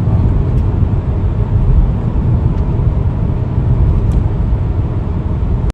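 Steady low road and engine rumble inside a moving car's cabin, cutting off suddenly at the end.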